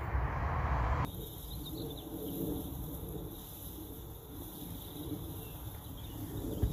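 Wind buffeting the microphone in an open field as a low rumble, cut off suddenly about a second in. It gives way to a quieter outdoor background with a steady high-pitched insect chirring.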